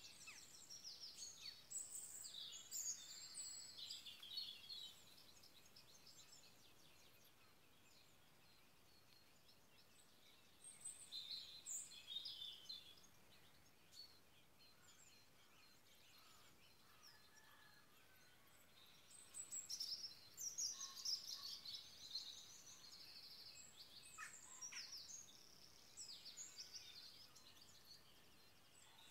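Faint songbirds singing at dawn, several overlapping high chirping phrases that come in bursts, with quieter gaps between.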